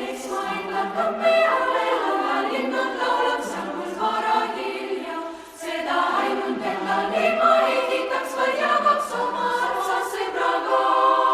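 Music of a choir singing in harmony, with a brief dip about five and a half seconds in.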